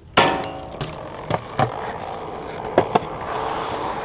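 BMX bike: a hard hit that rings briefly about a quarter second in, then wheels rolling on pavement with a run of sharp knocks and clatters.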